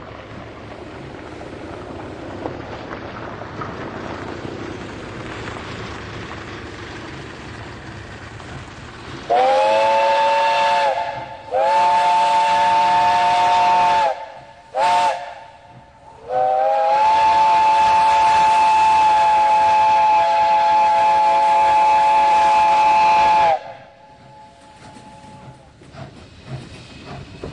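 Steam hissing steadily, then a steam locomotive whistle sounding several notes at once. It gives two blasts of about two seconds each, a very short toot, and then a long blast of about seven seconds. The pitch slides up as each blast opens and sags as it closes.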